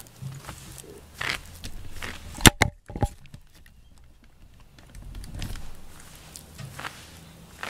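Cat eating from a plastic dish: scattered small wet clicks and smacks of chewing and licking, with a quick cluster of sharp knocks about two and a half seconds in, the loudest sound.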